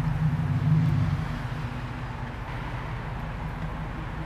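Jeep Grand Cherokee's 5.7-litre Hemi V8 running at idle, a low steady engine note that swells briefly in the first second and then settles.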